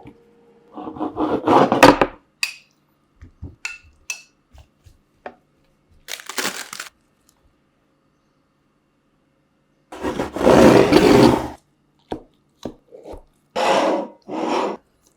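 Crisp food being handled: a string of separate crunching, crackling and scraping sounds, each a second or so long, with short ticks and silent gaps between them.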